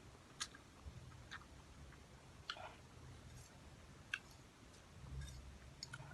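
Quiet eating of instant cup noodles: chewing with about five small sharp clicks spread out over a faint low hum.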